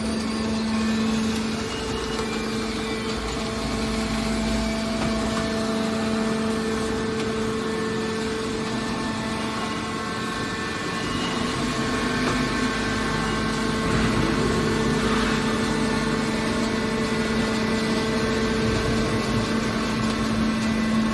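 Hydraulic scrap metal baler shear running: a steady machine hum with a constant low tone.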